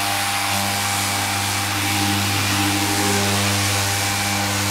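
Festool random orbital sander running at a steady pitch with a fine P6000 abrasive disc, wet-fine-sanding the clear coat on black car paint: the fine-grit step of flattening the paint before polishing.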